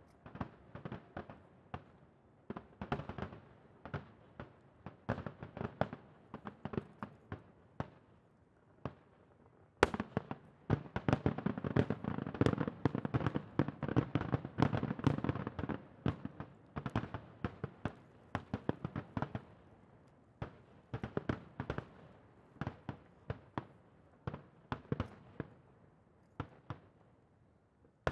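Aerial fireworks shells bursting in a rapid string of bangs and pops. About ten seconds in a sharp bang opens a denser, louder barrage lasting several seconds, after which the reports thin out again.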